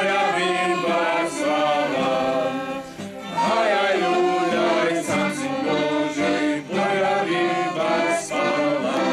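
A group of voices singing a Slovak Christmas carol (koleda) together, in held phrases with short breaths between lines.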